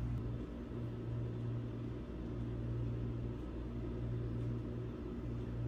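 Steady low hum with a few faint higher overtones, like a motor or appliance running, slightly rising and falling in strength.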